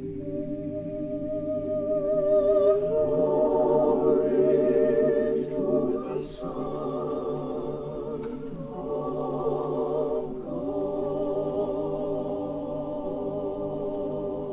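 A choir singing a spiritual in long held chords, with a soprano voice in wide vibrato above it. The sound swells to its loudest a few seconds in, dips briefly near the middle, then holds steady.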